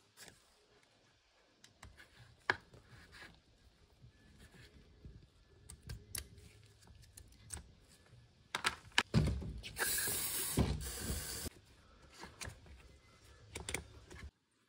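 Light clicks and scrapes of a pick and gloved fingers working the old gasket out of a BMW N55 oil filter housing, then, about ten seconds in, a loud hiss of aerosol parts cleaner sprayed for a second or two.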